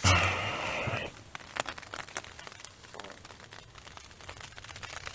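Tent fabric rustling and crinkling as it is handled, loudest for about the first second, then light scattered ticks and crackles.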